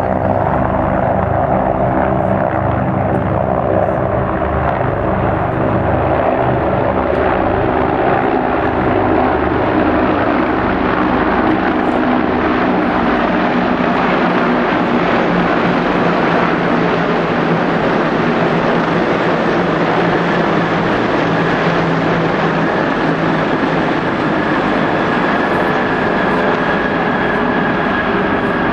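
A large formation of helicopters flying overhead: a loud, steady drone of rotors and turbine engines. The low rotor beat is strongest in the first few seconds, and a faint steady whine joins in later.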